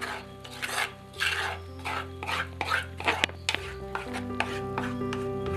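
Spoon stirring and scraping a thick mixture around a clay pot, in quick repeated strokes about three a second.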